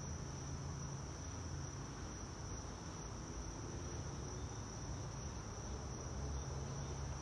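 Steady, high-pitched chorus of crickets, one unbroken trill, over a faint low rumble.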